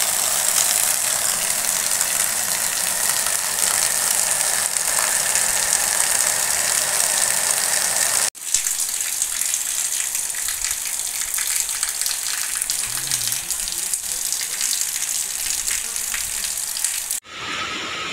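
Heavy rain pouring down, a steady dense hiss. It cuts off sharply twice, about eight seconds in and again near the end.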